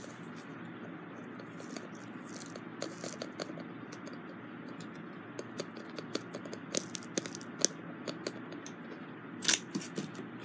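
Small plastic diamond-painting drills clicking and rattling as they are tipped from a clear jar into a plastic tray: a scatter of light ticks that gets busier about halfway through, with the loudest clicks near the end.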